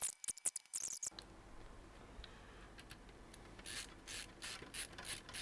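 A nylon zip tie being pulled tight, giving a dense run of rapid ratcheting clicks that stops about a second in. Later comes a run of short, quick rubbing or scraping strokes, about three or four a second.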